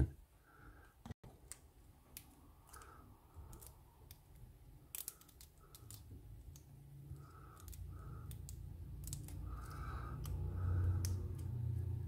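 Faint scattered metallic clicks and scrapes of a thin steel shim being worked into a pin-tumbler lock cylinder between plug and housing, going in stiffly against the lock's tight tolerances. A low handling rumble from the fingers on the lock builds from about halfway.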